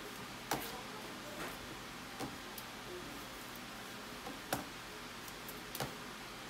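A plastic doll being handled in a plastic baby bathtub, giving about six light, irregular clicks and taps over a steady room hiss.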